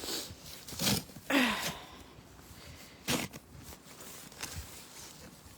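Snow shovel scraping and scooping through deep snow: a handful of short, irregularly spaced scrapes.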